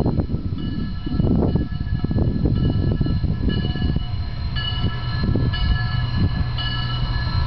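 Steam locomotive approaching, its whistle sounding a string of blasts, each a chord of several steady tones, over a heavy low rumble.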